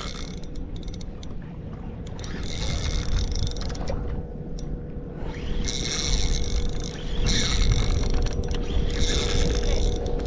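Large spinning reel being cranked in bouts under heavy load from a big fish, its gears and drag clicking and whirring.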